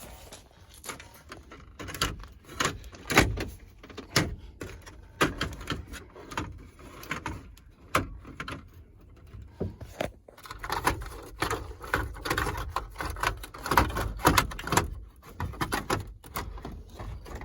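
Irregular clicks, clanks and knocks of hand tools and metal parts being worked on a junked truck.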